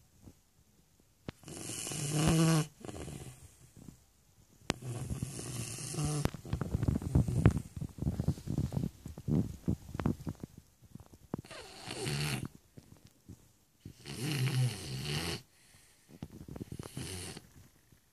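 Shar Pei dog snoring in its sleep: a run of snores, each about a second long, coming every two to three seconds, with softer crackling breaths between them.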